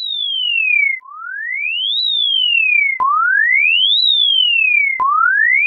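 Electronic alarm tone: a single pure tone that sweeps up in pitch for a second, then glides partway back down for a second, repeating every two seconds like a siren, with a faint click each time a cycle restarts.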